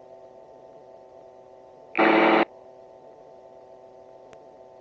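Gyroplane engine heard through the headset intercom as a faint steady hum of several steady tones. About two seconds in, a loud half-second burst of radio static cuts in and out sharply.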